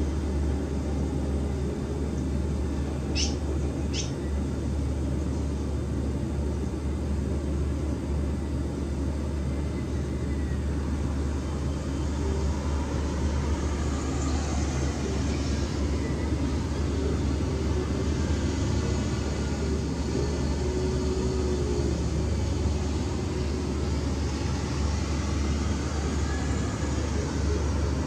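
Steady low rumble throughout, with two short, high chirps about three and four seconds in.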